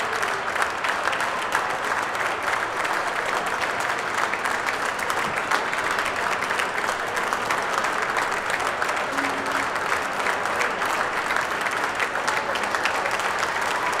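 Crowd applauding steadily: dense, continuous clapping.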